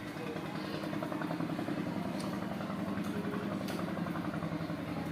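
A motor engine idling steadily, a low hum with a fast even pulse, with a couple of faint clicks over it.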